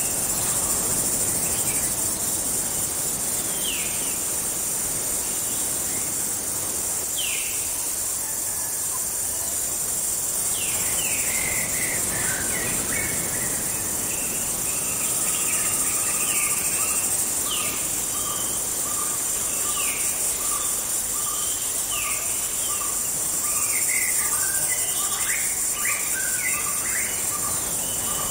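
Tropical forest ambience: a steady high-pitched insect chorus with birds calling over it in short downward-sweeping chirps. From about halfway, a lower note repeats a little more than once a second.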